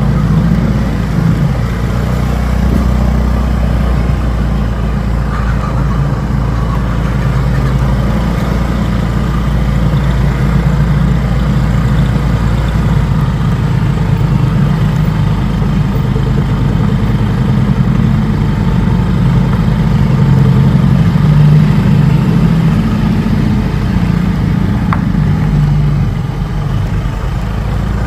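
Motor vehicle engine running steadily while on the move, a continuous low-pitched sound with no breaks.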